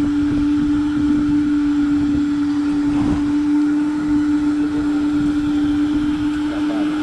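Steady mechanical hum of a fishing boat's running machinery: one constant tone over a low rumble.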